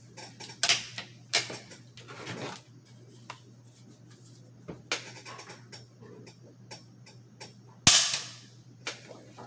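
Several metallic clicks as the action of a Daniel Defense Delta 5 bolt-action rifle is worked. About eight seconds in comes one sharp snap as the trigger, adjusted down to about one and a half pounds, breaks under the pull of a trigger gauge and the rifle dry-fires.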